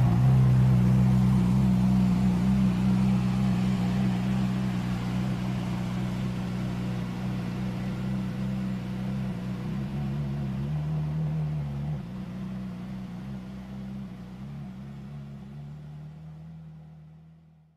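Steady, low engine-like hum of a toy vehicle. Its pitch shifts slightly about two-thirds of the way through, then it fades out gradually and cuts off at the end.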